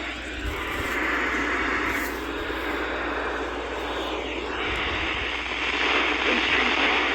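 Radio static: a hiss from a radio receiver with no clear signal, its level swelling and dipping, with a brief sweeping sound about four to five seconds in.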